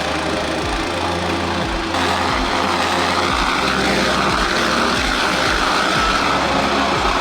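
A motor-driven blower running steadily with a mechanical hum. About two seconds in it grows louder, adding an airy rushing hiss.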